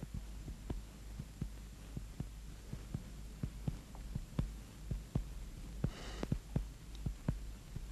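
Soft, irregular knocks, roughly three a second, over a low steady hum, with a brief rustle about six seconds in.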